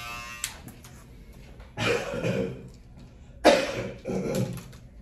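An electric hair trimmer's buzz cuts off with a click about half a second in. Then come two loud coughing fits, about a second and a half apart, the second one louder.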